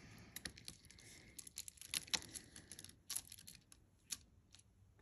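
Faint clicking and light rattling of a multi-strand faux pearl necklace being handled, its beads knocking together. The clicks are dense for about three seconds, then thin out to a few before stopping.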